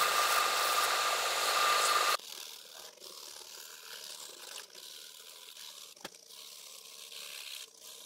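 Belt sander grinding knife handle scales of wood bonded to brass: a steady hiss with a thin whine that cuts off about two seconds in. It is followed by quieter scraping from hand filing and sanding the handle, with a sharp tick about six seconds in.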